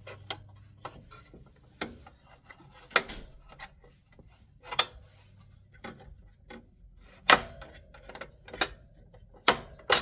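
Huot drill index case being handled: sharp clicks and knocks every second or two, with light rubbing in between, as its fold-up sides are worked.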